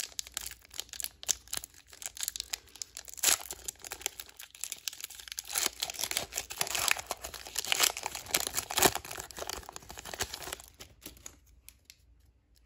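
Foil wrapper of a Pokémon Chilling Reign booster pack crinkling and tearing as it is torn open by hand, the crackling dying down near the end.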